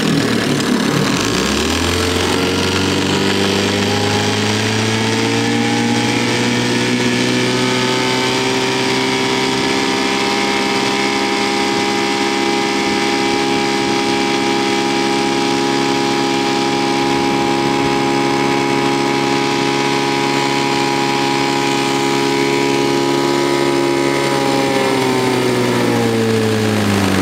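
1967 Evinrude Fisherman 6 hp two-stroke outboard motor running under way. It is throttled up from a low speed over the first several seconds, holds a steady high speed, then is throttled back near the end.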